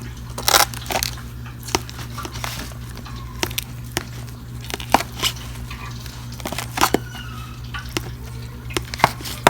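Scattered sharp crunches and clicks as the crisp deep-fried batter shell is handled and broken apart, over a steady low hum.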